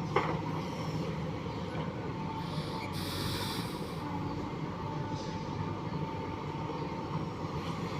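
Diesel engine of earthmoving machinery running steadily with a thin steady whine, a sharp knock right at the start and a short hiss about three seconds in.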